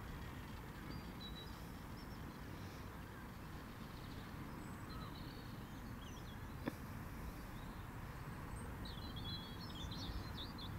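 Outdoor ambience: a steady low rumble with birds chirping, the chirps busiest near the end, and one sharp click about two-thirds through.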